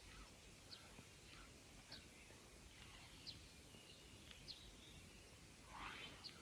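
Faint bird chirps, short high calls repeating about once a second over a quiet outdoor hiss, with a slightly louder sweeping call near the end.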